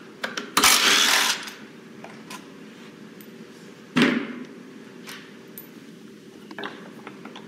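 Cordless screwdriver whirring briefly as it backs out one of the three bolts holding the transmission's gear-driven hydraulic pump, followed by a single sharp knock about four seconds in.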